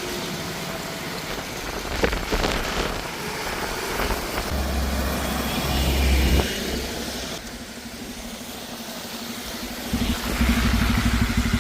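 A car on the move: steady engine and road noise. Near the end the engine grows louder with a regular pulsing rumble.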